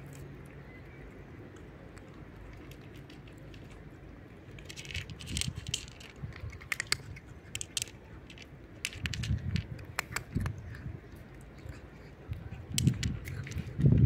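A cat eating from a plate: after a quiet start, a run of sharp clicks and crunches from about four seconds in as it chews dry kibble, with a few dull low thumps, the loudest near the end.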